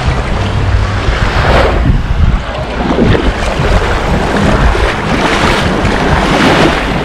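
Wind buffeting the microphone over the wash of small waves breaking on the shore, in loud, uneven gusts with a heavy low rumble.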